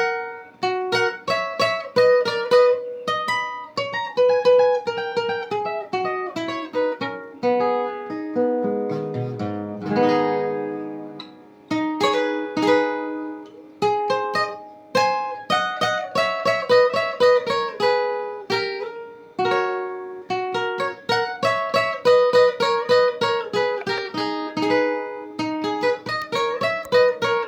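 A semi-professional requinto, a small six-string guitar tuned higher than a standard guitar, played solo: a quick picked melody of single notes making up an intro, with a run going down into a low ringing chord about nine to ten seconds in.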